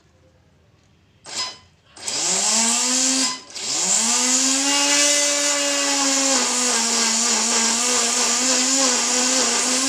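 An RC boat's electric motor and propeller whirring in a jar of guava and water, blending it into juice. After a short blip, the motor spins up with a rising whine, stops briefly, then spins up again and runs steadily at a high whine that wavers slightly as the propeller churns the fruit.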